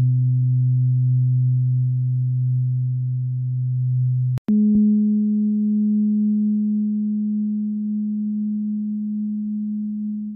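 Solar plexus chakra tuning fork, tuned to 126.22 Hz, ringing a steady low pure tone. After a click about four and a half seconds in, the sacral chakra tuning fork rings a higher steady tone that slowly fades.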